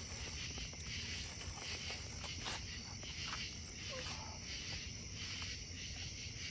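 Faint steady chorus of night insects such as crickets, with a low rumble underneath and a few soft clicks.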